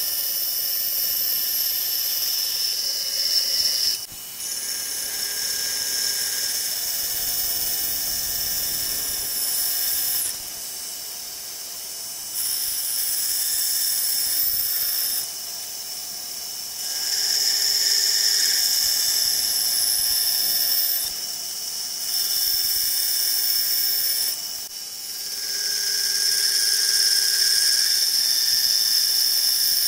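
Portable band saw cutting 1/8-inch-wall aluminum rectangular tube: a loud, high-pitched whine of the blade in the metal, which drops and comes back abruptly several times as the cut goes on.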